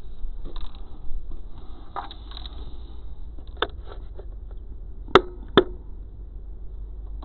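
A few scattered light clicks over a steady low rumble, then two sharp clicks about half a second apart about five seconds in.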